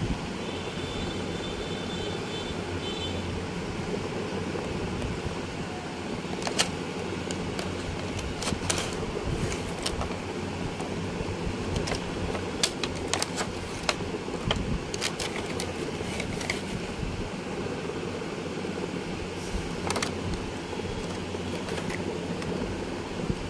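Clear plastic packaging and a small plastic hanging scale with a metal hook and ring being handled, giving scattered clicks and crinkles over a steady low background hum.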